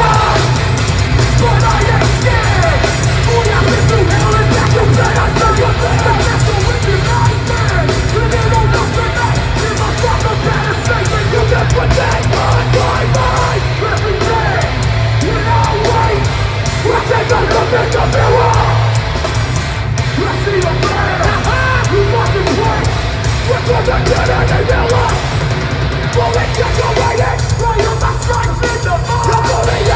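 Hardcore band playing live and loud: distorted guitars, bass and drums with a shouted vocal over them.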